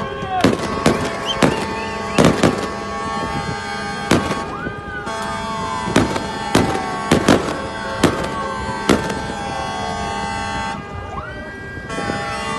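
About a dozen sharp bangs in an uneven series over a chorus of steady horn tones from boats, with siren whoops that fall and rise in pitch.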